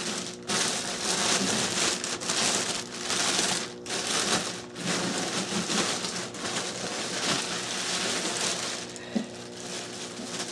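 Clear plastic bag crinkling and rustling as it is pulled off by hand, in uneven bursts with short pauses. It grows quieter near the end, with a brief knock about nine seconds in.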